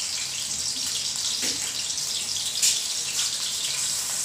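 Sliced onions sizzling steadily in hot oil in a kadai, frying.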